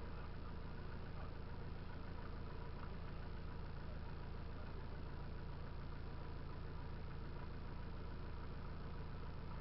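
Off-road vehicle's engine idling steadily during a recovery.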